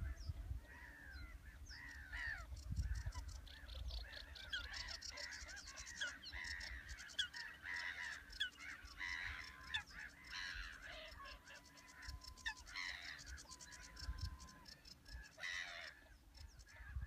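A flock of birds calling, many overlapping squawks and chattering rattles with a few held whistle-like notes in the middle, over a low rumble.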